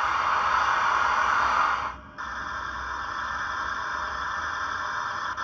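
Steam hiss played through the speaker of a Hornby Coronation-class steam locomotive model's Youchoos DCC sound decoder. The loud hiss cuts out about two seconds in, and after a brief break a quieter steady hiss carries on.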